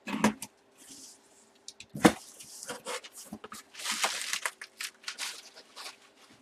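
A cardboard box and its plastic packaging being handled and opened by hand: irregular rustling, tearing and scraping, with a sharp knock about two seconds in. A faint steady hum runs underneath.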